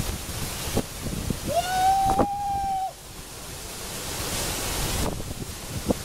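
Waterfall rushing, with wind buffeting the microphone and a few thumps. About a second and a half in, a single held note, rising briefly at its start, sounds over the water for just over a second and then cuts off.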